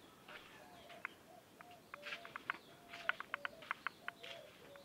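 Birds calling: many quick, sharp chirps with a few short, lower notes among them, faint.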